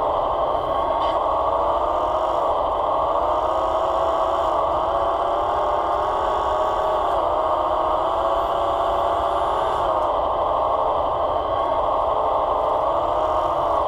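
Electric hydraulic pump of a scale RC forestry crane on a model Fendt 1050 tractor, whining steadily. Its pitch dips and wavers several times as the crane's valves are worked to turn and open the grapple.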